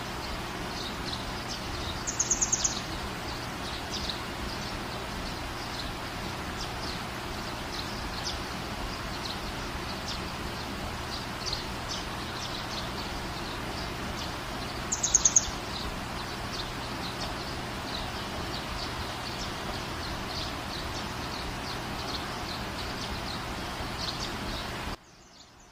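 Sliced onions frying in hot ghee and oil in a frying pan: a steady sizzling hiss with scattered crackles. Twice, about two seconds in and again about fifteen seconds in, a short burst of rapid high chirps stands out above the sizzle.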